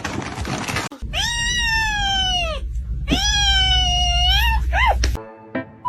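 A cat meowing: two long, drawn-out meows that rise and then fall, followed by a short rising meow.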